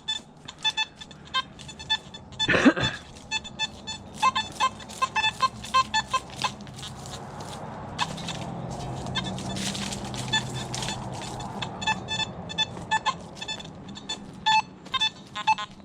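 Nokta Simplex+ metal detector giving bursts of short, irregular beeps as the coil is swept over the ground. A brief loud whoosh comes about three seconds in, and a longer swell of rushing noise rises and fades in the middle.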